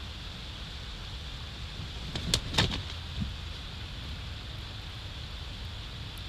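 Bald eagle landing on its stick nest: a quick cluster of wing flaps and knocks on the branches about two seconds in, then one smaller knock, over a steady hiss.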